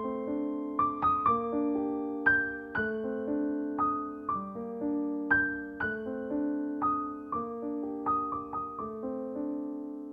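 Background music: a gentle keyboard melody, notes struck a few times a second and left to ring over sustained lower notes.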